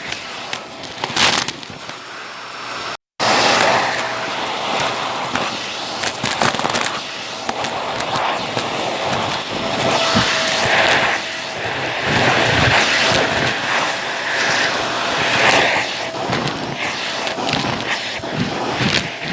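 Vacuum cleaner running while it sucks up crunchy debris, with dense crackling and rattling as the bits are pulled through, over the motor's steady hum. The sound cuts out completely for a moment about three seconds in.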